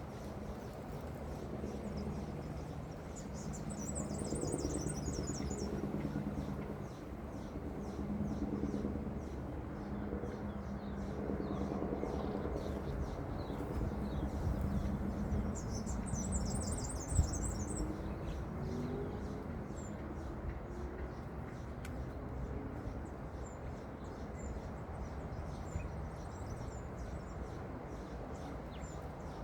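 A bird's rapid high-pitched trill, heard twice with a few faint chirps afterwards, over a steady low background rumble; a single sharp knock about halfway through.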